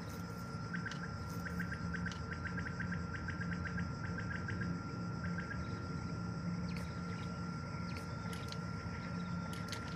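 Common quail calling: a run of short, quick chirps in clusters through the first half, over a steady thin tone and a low hum.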